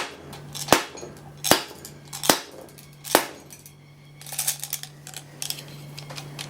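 Five sharp hammer blows on a Sanden scroll AC compressor being taken apart, evenly spaced a little under a second apart. Then, from a bit past the middle, a run of lighter metallic clicks and rattles.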